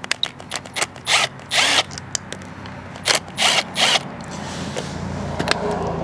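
Socket ratchet clicking in short runs as it backs out the two 7 mm screws on a small-engine carburetor.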